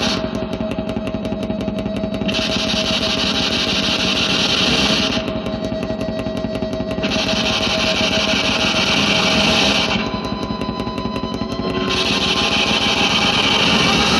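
Harsh noise music: a dense, grinding low drone with a steady held tone, overlaid by blocks of bright hiss that cut in and out every two to three seconds.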